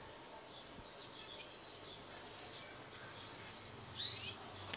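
Faint, scattered high-pitched chirps of small birds, with a louder quick chirp about four seconds in.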